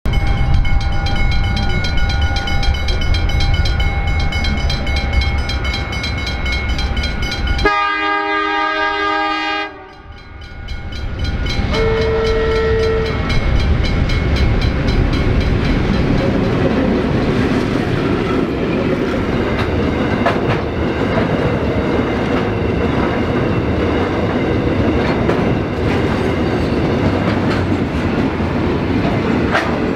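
Freight train running with a low rumble until the sound changes abruptly about eight seconds in. A locomotive horn then sounds a loud chord for about two seconds, and a brief single horn note follows a couple of seconds later. After that the train rolls past, its wagons rumbling and clattering over the rail joints.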